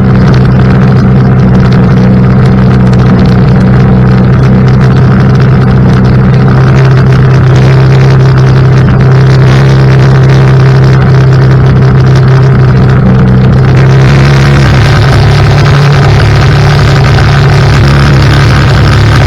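ATV engine running steadily under load while it tows a homemade roller crimper across a field. About fourteen seconds in the engine note shifts and the sound turns brighter.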